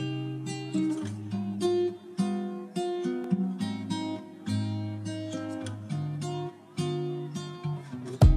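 Acoustic guitar background music, plucked and strummed notes. A louder passage with sharp hits cuts in right at the end.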